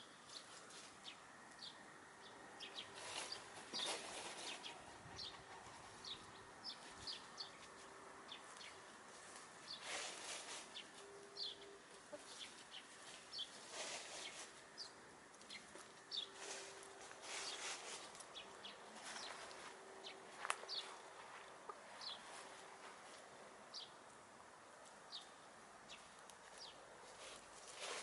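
Faint sound of hens foraging in grass: soft low clucking and murmuring that comes and goes, with occasional rustles and pecks and many short high chirps scattered throughout.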